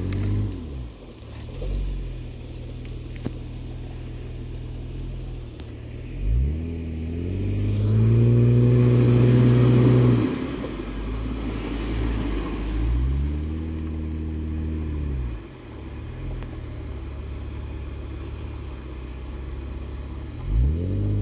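Engine revving hard in repeated surges during a tow-strap recovery of a Jeep Wrangler stuck in deep mud. Each surge climbs, holds for a couple of seconds and drops back. The longest and loudest comes about eight seconds in, with a rush of noise over it, and another rev begins near the end.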